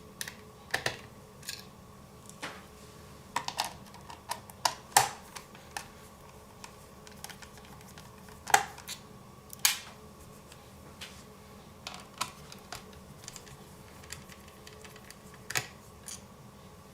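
Screwdriver undoing the small screws of a laptop hard-drive tray: irregular light clicks and taps of metal bit, screws and plastic, some louder than others.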